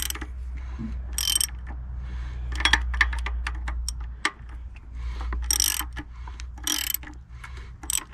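Ratchet handle clicking in bursts on a socket as a Reliant 850 OHV engine is turned over by hand at the crankshaft pulley. The engine turns with little resistance and nothing going clunk, so it is not seized.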